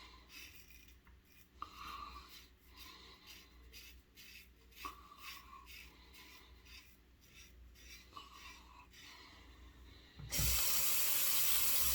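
Gillette Red Tip double-edge safety razor with a Kai blade scraping through lathered stubble in a series of short strokes. About ten seconds in, a tap is turned on and water runs steadily into a sink, louder than the strokes.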